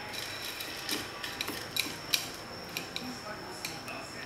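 Scattered light clinks and taps of utensils against a dish, irregularly spaced, over a faint steady high-pitched whine.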